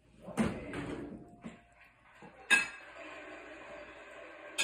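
A drinking glass clinks sharply once, about halfway through, with a short ring after it, as a cat's paw knocks against it while dipping into the drink. Softer scuffs and a light tap come before it.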